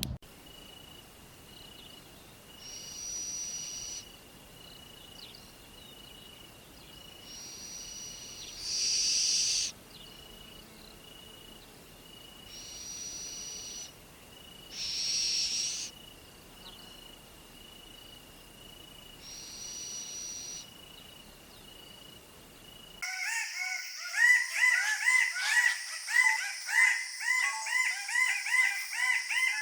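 Birdsong: a thin high note repeated at an even pace, with six short higher calls scattered over it. About two-thirds of the way through it cuts abruptly to a louder recording of busy, rapid chirping from many birds.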